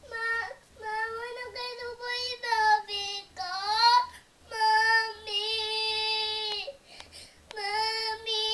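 A young girl's acted crying: a string of high-pitched, drawn-out wails with short pauses between, one rising in pitch about three and a half seconds in and the longest held for about two seconds.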